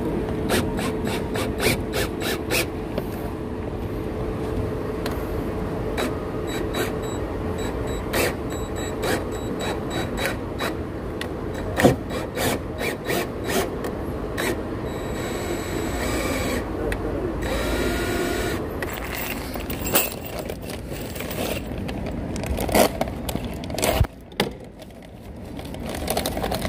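Handling of a cordless drill driver and treated-wood stair boards: a stream of irregular clicks, taps and scrapes over a steady low hum, with one sharp knock about twelve seconds in.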